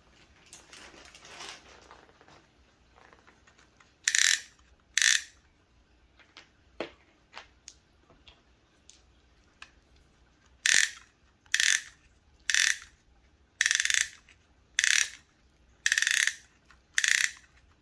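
Ratcheting clicks of a Valken M17 paintball magazine's spring being wound down by hand: two short ratchet runs about four seconds in, then a steady series of runs about once a second from about eleven seconds on, with a few light handling clicks between.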